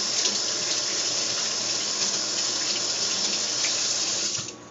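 Kitchen sink faucet running steadily as a tablespoon is rinsed clean under it. The water is shut off abruptly near the end.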